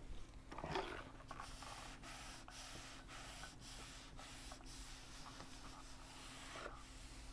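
Semco 800 W compact steam iron putting out steam: a soft hiss that breaks off and restarts about twice a second. A couple of knocks come just under a second in.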